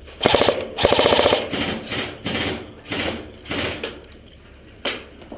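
Airsoft guns firing in rapid full-auto bursts: two long, loud bursts of quick clicking shots in the first second and a half, then several shorter bursts and a single sharp shot near the end.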